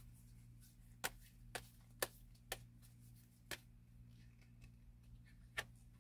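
Playing-card-stock oracle cards clicking as they are handled and laid down: six sharp separate clicks in the first six seconds, the loudest about two seconds in, over a faint steady hum.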